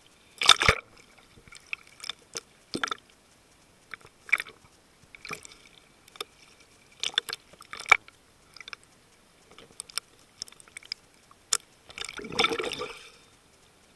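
Sea water slapping and sloshing against a camera at the waterline in choppy surface waves, in irregular sharp splashes. Near the end a longer rush of water noise sounds as the camera goes under for the descent.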